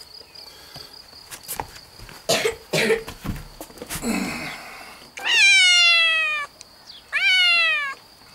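Domestic tabby cat meowing twice, two long drawn-out meows that slide down in pitch, about five and seven seconds in. A few short, harsh noises come before them.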